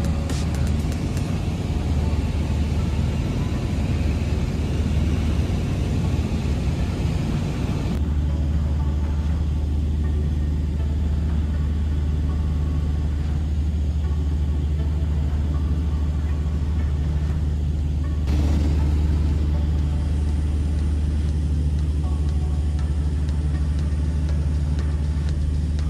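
Single-engine piston light aircraft, a Socata TB200, drones steadily in flight. Its sound shifts abruptly about 8 and 18 seconds in.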